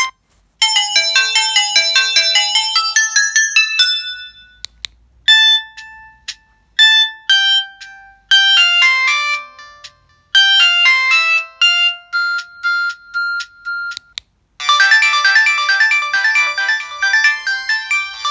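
Samsung GT-E1170 mobile phone playing its built-in ringtones one after another as electronic melodies of bright beeping notes. First comes a fast run of notes. Then a slower tune with short pauses between phrases follows, and near the end a fuller, busier melody begins.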